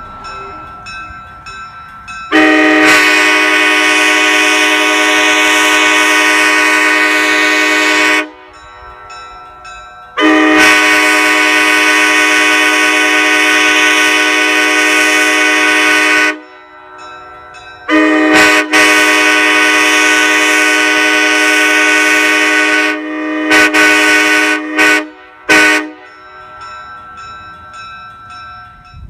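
Nathan Airchime K5LA five-chime locomotive air horn, bells in the R35 arrangement, sounding a steady chord in three long blasts of about six seconds each. A few short toots follow near the end.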